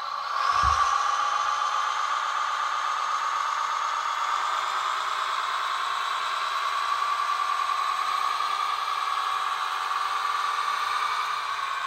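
Wedico 1/16-scale DAF XF 8x8 radio-controlled truck pulling away and driving on a hard floor: a steady mechanical running sound that rises in pitch and level about half a second in, with a short low thump as it sets off.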